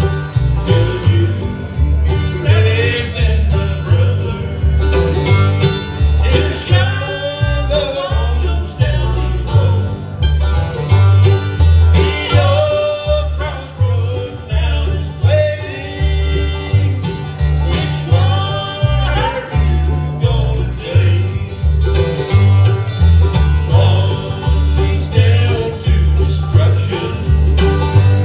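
Live bluegrass band playing an up-tempo number: banjo and guitar over a steady bass beat of about two a second, with a bending lead line over the top.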